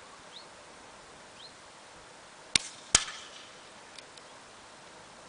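An air rifle shot: a sharp crack about halfway through, then a second, slightly louder crack about a third of a second later with a short ringing tail, typical of the pellet striking the target.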